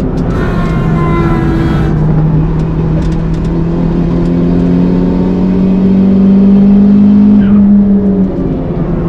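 Toyota Starlet Glanza V's turbocharged 1.3-litre four-cylinder pulling hard, its pitch climbing slowly as the car accelerates through one gear, then dropping about a second before the end. A high hiss sits over the engine for about a second and a half near the start.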